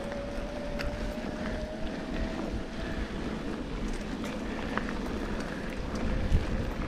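Sport-On Explorer electric-assist off-road handcycle riding a dirt trail: a steady whine from its drive motor that wavers slightly in pitch, over the low rumble of tyres on dirt and wind on the microphone. A few sharp clicks of gravel and rock come through.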